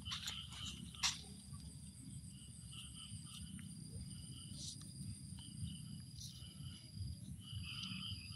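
Outdoor ambience: a steady high insect drone with short chirping calls coming and going, over a low rumble. A couple of sharp clicks near the start and about a second in.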